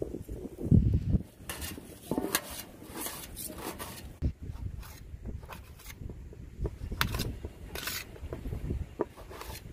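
Small knife cutting onions and tomatoes on a stainless steel plate, the blade tapping the metal now and then in short scattered clicks. A low rumble of wind on the microphone is loudest about a second in.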